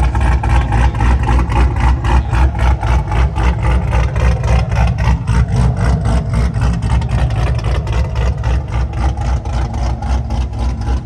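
Car engine idling loudly through its exhaust, with a deep steady rumble and an even, rapid pulsing beat.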